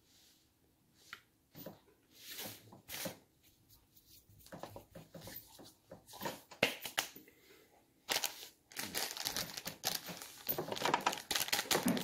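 Food wrapper being crinkled and torn open: scattered crackles at first, building into continuous loud crinkling over the last four seconds.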